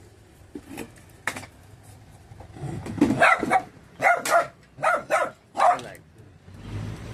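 A pet dog giving a run of short barks from about three seconds in, its "speaking" on command, after a few faint knocks.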